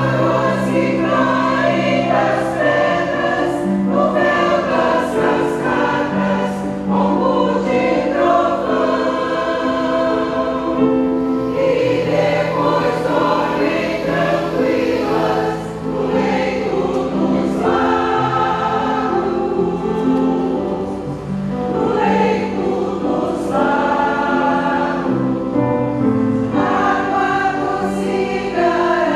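Mixed choir of men's and women's voices singing in parts, with keyboard accompaniment.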